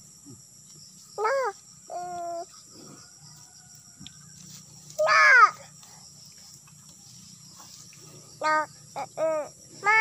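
A bird calling in short cawing calls: single calls about a second and two seconds in, the loudest at about five seconds, then three in quick succession near the end.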